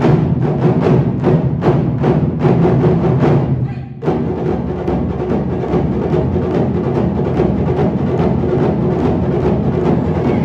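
Large ensemble of Japanese taiko drums (ōdaiko, chū-daiko and shime-daiko) struck together in unison strokes, about three a second. The sound dips briefly about four seconds in, then comes back as dense, continuous drumming.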